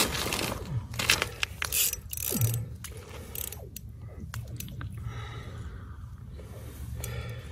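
Fishing reel clicking in irregular ratcheting runs while a heavy trout is being played on the line.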